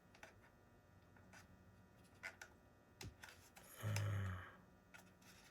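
Faint clicks and light handling of small plastic model parts, a few sharp ticks spread through the quiet, with a short low voice-like hum about four seconds in.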